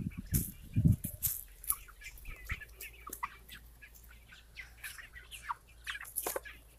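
A flock of seven-week-old Red Ranger broiler chickens making scattered short high calls and clucks while moving about, with wing flaps and rustling. A couple of low thumps come in the first second.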